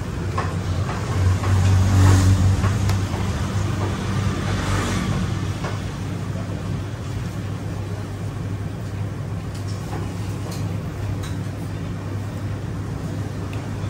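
Low steady hum of road traffic, swelling as a vehicle passes about one to three seconds in, with a few light clicks of a spoon against a plate.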